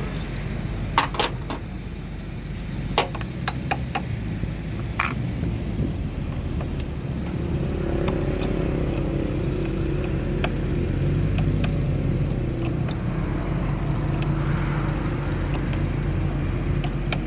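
A motor vehicle running with a steady low rumble. A few sharp clicks or knocks come in the first five seconds.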